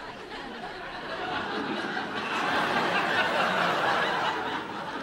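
Studio audience laughing, a long crowd laugh that swells to its loudest around the middle and eases off near the end.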